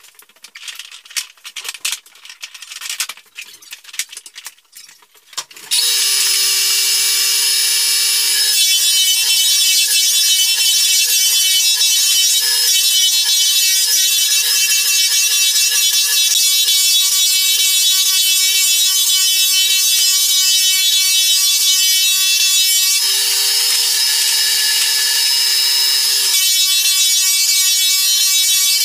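Scattered clicks and knocks, then about six seconds in a drum floor sander starts abruptly and runs steadily with a high whine, sanding the old finish off Douglas fir floorboards, its tone shifting a few times.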